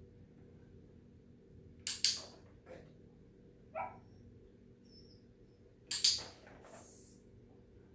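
Two sharp double clicks about four seconds apart, and a brief, short whine from the dog between them.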